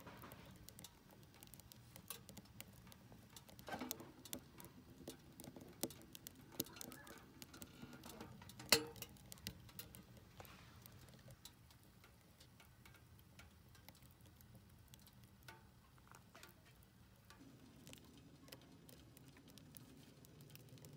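Wood fire crackling inside a small steel box stove: faint, irregular sharp snaps and ticks throughout, with a cluster of louder pops around four seconds in and the loudest snap about nine seconds in.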